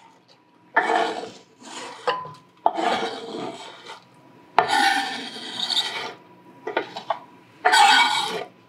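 A chef's knife blade scraping across a wooden cutting board, sweeping chopped onions off into a stainless steel saucepan. About six scrapes of uneven length, the longest lasting over a second.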